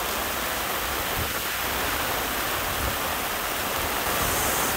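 Heavy rain squall with gusting wind: a steady hiss of rain pelting the water and the boat's canvas cockpit enclosure.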